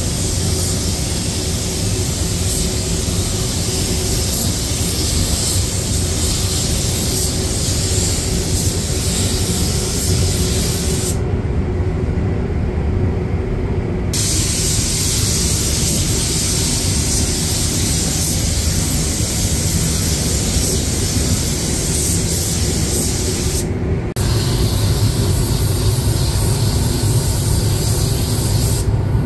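Compressed-air paint spray gun hissing steadily as red paint is sprayed. The trigger is released twice: the hiss stops for about three seconds around the middle, then again briefly. A steady low rumble runs underneath.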